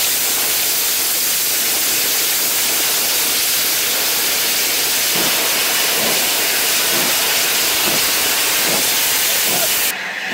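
Steam jets of a Class 25NC steam locomotive's mechanical stoker hissing loudly and steadily as they blow coal across the firebox. The hiss cuts off suddenly near the end.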